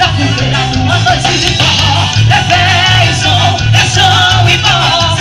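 Loud music with singing over a steady, pulsing bass beat.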